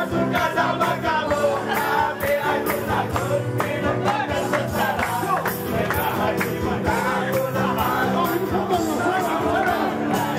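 Music with singing and a steady beat, over the noise of a crowd.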